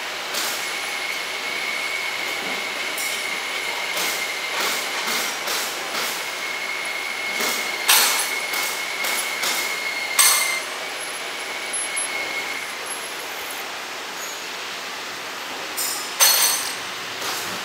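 Small belt-driven bench lathe turning a steel bar: the machine runs steadily while the cutting tool gives a thin, steady whine against the spinning workpiece. The whine stops about thirteen seconds in, and scattered sharp clinks are heard throughout.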